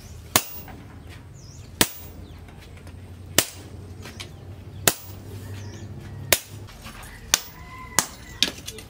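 Hammer blows on a red-hot steel cleaver blank on an anvil: sharp metallic strikes about every one and a half seconds, coming quicker near the end.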